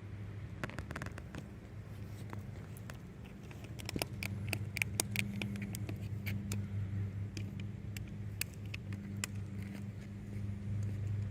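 A steady low engine hum, with many scattered sharp clicks and light crackles over it, thickest about four to six seconds in.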